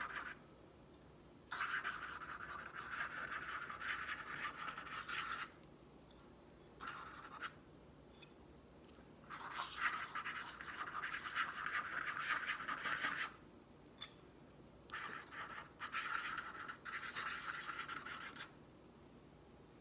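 Dip pen's metal nib scratching across tracing paper as lines of looping script are written, in four spells of a few seconds each with short pauses between them.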